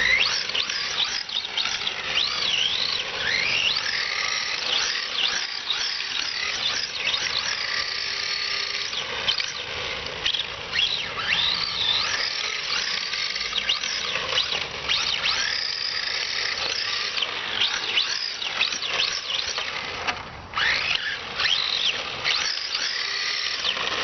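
Tamiya TL-01 RC car's electric motor and drivetrain whining under repeated bursts of throttle while it drifts, the pitch climbing and falling with each burst. The gear grind has been repaired, so the drive runs without grinding. The whine drops out briefly about three quarters of the way through.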